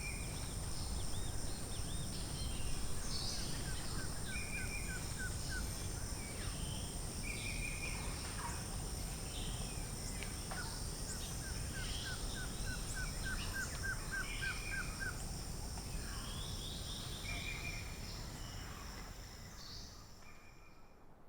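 Forest ambience: several birds calling, one repeating a short trill and another giving runs of quick, evenly spaced notes, over a steady high insect drone and a low rumble. The whole fades out near the end.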